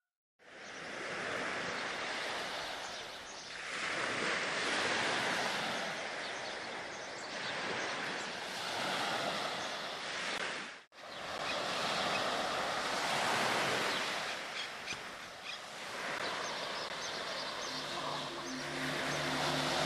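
Small waves washing onto a sand and pebble beach, the surf swelling and falling every few seconds, with a brief break about eleven seconds in. Near the end a low steady engine hum joins in.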